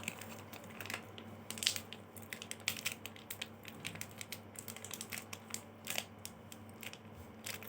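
Chewing a crunchy chocolate wafer bar close to the microphone: a series of irregular, crisp crunches.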